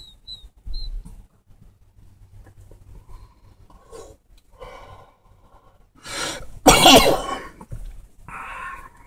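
A man coughs hard after taking a hit of cannabis smoke from a pipe: a breathy exhale about four seconds in, then a loud fit of coughing a couple of seconds later, and a weaker cough near the end.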